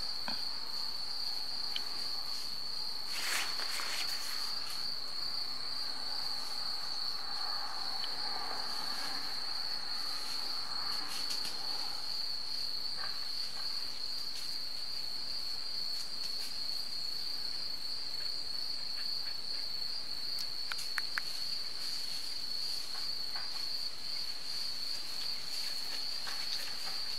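Crickets trilling steadily in one unbroken high-pitched tone, with a few faint clicks or rustles now and then.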